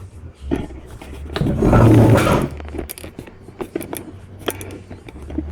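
A scrape lasting about a second, starting about a second and a half in, then a run of light clicks and taps: tools and parts handled while removing a motorcycle's stock exhaust slip-on.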